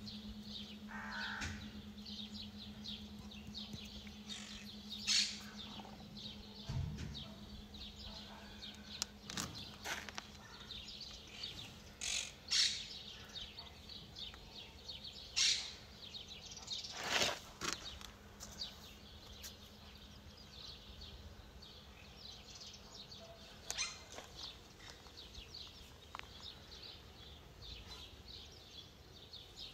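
Birds chirping and calling outdoors, with several louder short calls, some of them caws. A low steady hum stops about twelve seconds in.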